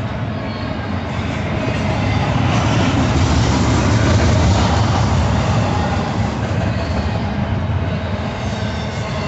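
Double-stack intermodal freight cars rolling past close by: a steady low rumble of steel wheels on rail, swelling to its loudest around the middle.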